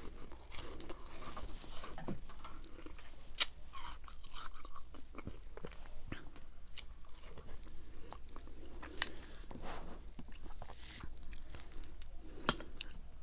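Close-up crunching and chewing of ice: irregular sharp crunches with softer chewing between, the loudest bites about three and a half, nine and twelve and a half seconds in.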